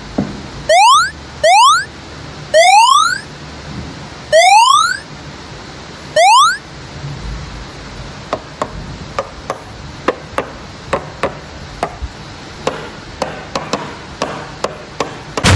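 Five loud, quick rising-pitch 'boing'-like sweep sound effects, then a steady run of sharp clicks about two a second.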